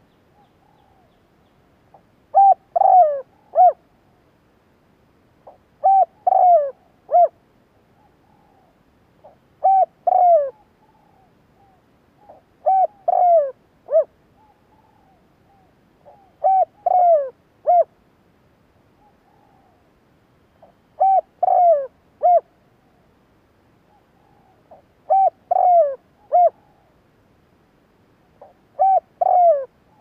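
Spotted dove cooing: eight repeated phrases of three or four short coos, one phrase every three to four seconds. These are the calls of a caged decoy dove used to draw in wild spotted doves.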